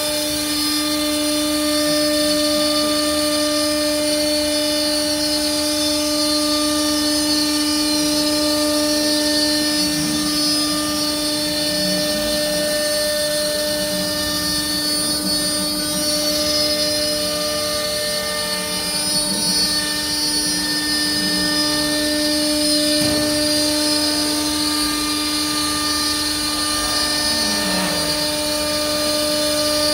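CNC router spindle running with a steady whine as its bit cuts through an MDF sheet.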